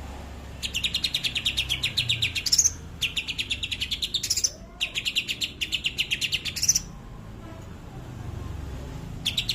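Green leafbird (cucak hijau) singing rapid trains of sharp repeated notes, about ten a second, in three bursts of around two seconds each, each ending in a higher flourish, with a fourth burst starting near the end. This is the rapid 'tembakan' burst imitating a kapas tembak.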